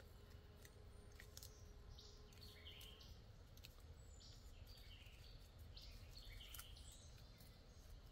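Near silence with faint woodland birdsong, short chirping notes scattered throughout, and a few faint clicks.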